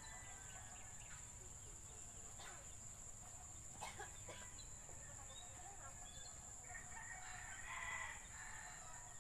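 A rooster crowing faintly, with the crow about seven to eight and a half seconds in, over a steady high-pitched hum. There are a couple of light clicks earlier.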